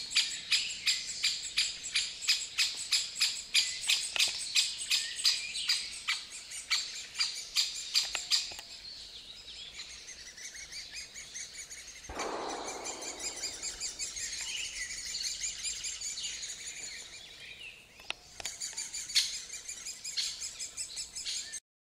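Great spotted woodpecker nest: dense, high chattering calls of the birds at the nest hole, with sharp calls repeated about three times a second for the first several seconds and again near the end. A brief rushing sound comes about halfway through.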